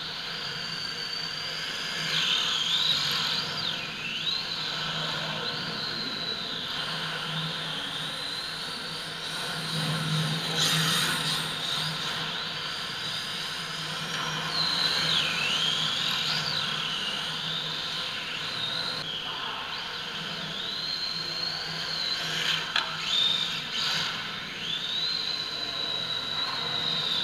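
Electric RC drift cars' motors whining, the pitch rising and falling over and over as the throttle is worked through the corners, over a steady hiss. A couple of sharp knocks near the end.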